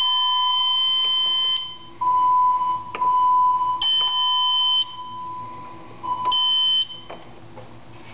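Mircom FA-1000 fire alarm system sounding with steady high tones that cut off about one and a half seconds in, then come back in three short bursts with a click at each start and stop. It falls quiet about seven seconds in.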